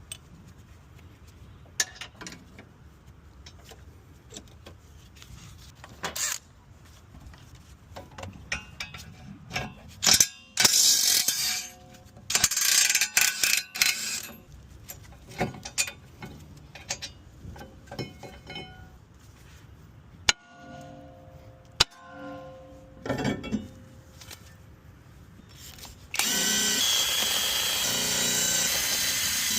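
Tools at work on a car's rear brakes: scattered clicks and clatter, with several short, loud bursts of a power tool near the middle. Near the end a loud steady noise starts suddenly and keeps going.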